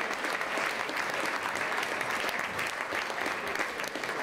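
Audience of dinner guests applauding: a steady, dense run of many hand claps.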